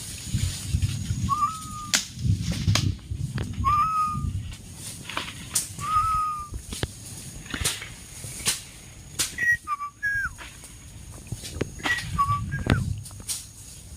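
A forest bird giving short, clear whistled calls a couple of seconds apart: first single notes that rise and then hold, later two-part notes that step down from high to low. Sharp clicks and low rustling run underneath.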